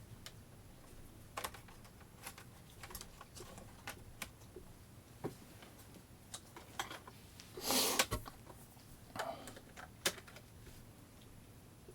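Scattered, irregular clicks and taps from hands working on a Dell 15R SE laptop, with a brief rustling scrape about eight seconds in.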